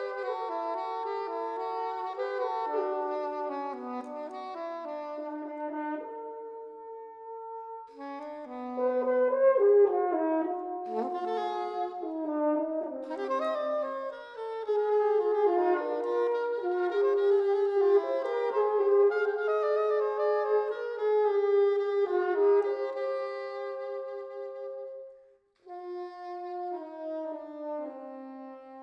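French horn and soprano saxophone playing a duet, two melodic lines moving together. The music breaks off briefly about 25 seconds in, then resumes with long held notes.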